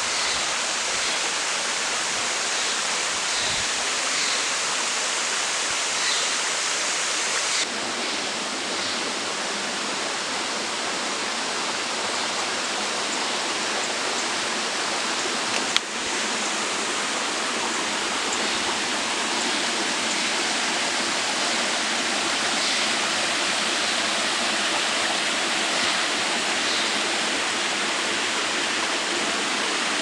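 Steady rush of water flowing over rocks in a forest stream. About a quarter of the way in the rush turns fuller and deeper, and there is a single sharp click about halfway through.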